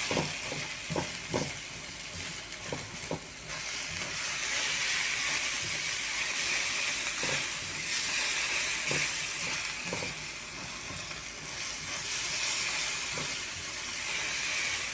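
Spice paste sizzling as it fries in oil in a pan, with scattered clicks and scrapes of a utensil stirring it against the pan. The sizzle grows louder about three seconds in.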